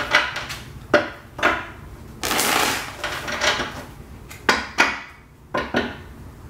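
A tarot deck being shuffled and handled: a run of sharp card slaps and taps, with a longer rush of shuffling noise lasting about a second a little past two seconds in.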